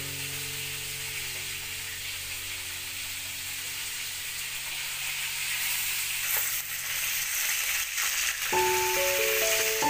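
Snakehead fish pieces sizzling and frying in oil in a steel wok, with a few clicks and scrapes of chopsticks and a wooden spatula against the pan between about six and eight seconds in. Soft background music notes fade out and new ones begin near the end.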